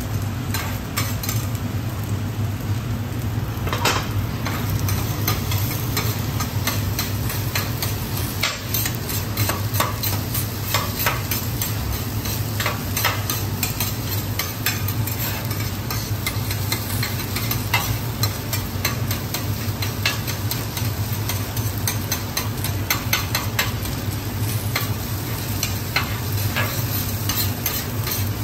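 Garlic fried rice sizzling on a steel teppanyaki griddle while two metal spatulas scrape, chop and toss it, with frequent sharp clacks of the spatulas against the plate, over a steady low hum.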